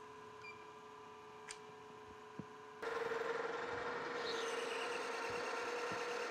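A metal lathe is switched on about three seconds in and its spindle and chuck run steadily, with a constant hum and whine from the drive. Before that there is only quiet shop hum and a couple of faint clicks.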